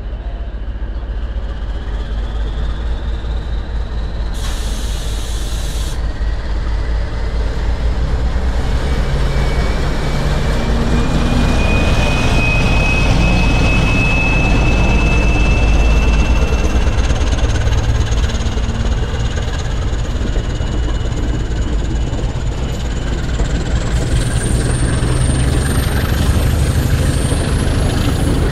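CP 1400-class diesel locomotive pulling away under power and passing close by: a heavy engine rumble that grows louder towards the middle, with a slowly rising whine. A short hiss of air comes about four seconds in.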